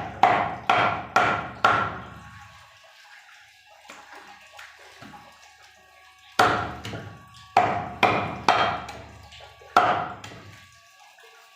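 Butcher's chopper striking beef in heavy chops, each with a short ringing tail: four strokes about half a second apart, a pause of several seconds, then five more strokes.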